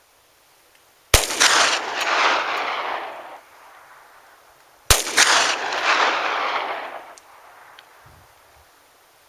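Two shots from a Glock 20SF pistol in 10mm Auto, about four seconds apart, each echoing away over about two seconds. The load is a 135-grain Cor-Bon PowRball fired over a chronograph.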